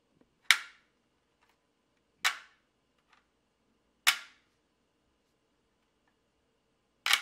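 Magnetic 3D-printed honeycomb grid snapping onto an Amaran Ace LED panel light, four sharp clicks one and a half to three seconds apart, as the embedded magnets pull the grid against the light.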